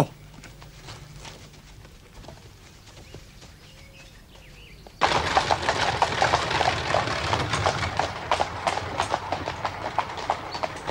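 Quiet for the first half, then about halfway through the hoofbeats of horses pulling a carriage start suddenly: a quick, uneven run of clip-clops on a hard drive over the rumble of the carriage rolling.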